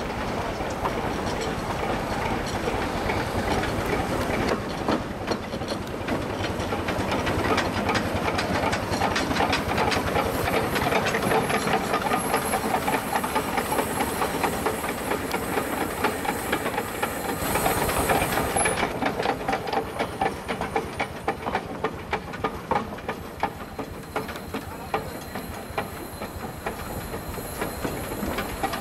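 Achensee Railway steam rack locomotive No. 4 hissing steam at its cylinders as it moves slowly along the tracks, with continual clanking and clicking. A brief higher hiss comes about two-thirds of the way through.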